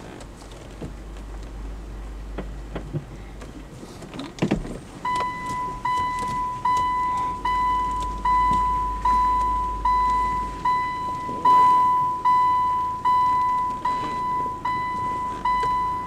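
A car's reverse-gear warning beeper sounding steady, evenly spaced beeps, about one every 0.8 seconds, starting about five seconds in, over the low hum of the running car.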